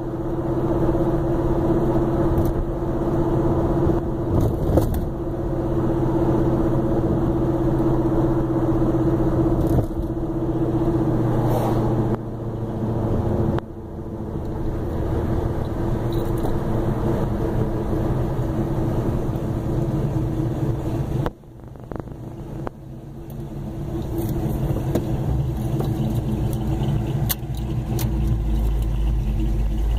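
Steady car engine and road noise from following behind a 1968 Plymouth Road Runner. The sound dips briefly about two-thirds of the way through. Near the end a deeper low rumble comes in as the camera closes in right behind the Road Runner.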